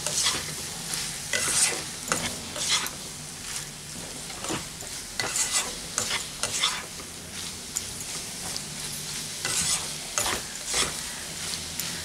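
Slotted spatula stirring and scraping through potatoes, onions and egg in a nonstick kadai, in short irregular strokes over a steady frying sizzle. The raw egg is being scrambled into the potato-onion fry.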